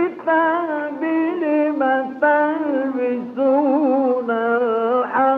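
A man's voice in melodic Quran recitation in maqam Rast, holding long ornamented notes in phrases with short breaks between them. It comes from an old 1960 recording that carries little high treble.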